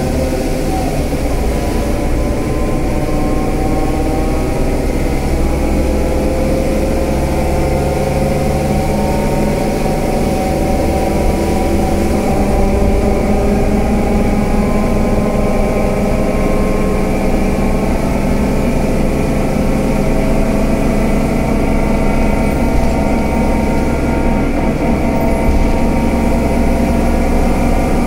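Scania K320UA bus's 9-litre five-cylinder diesel engine running steadily. Its note drifts slowly upward.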